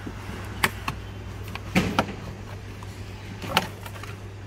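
Plastic interior trim being pried off a car's footwell: a few sharp clicks as the kick panel's clips let go and the panel is handled, over a steady low hum.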